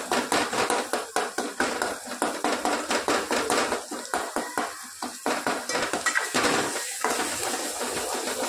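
Steel spoon scraping and clinking against the side and bottom of an aluminium pot, a few strokes a second, stirring ground spices into a thick onion-tomato masala as it roasts.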